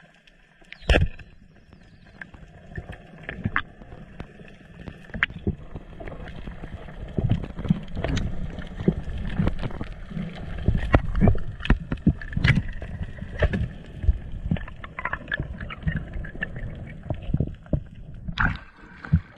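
Underwater spearfishing audio: a sharp crack about a second in as the speargun is fired, then a run of irregular knocks and low rumbling water noise as the speared fish is fought and handled on the shaft, with another loud rush of noise near the end.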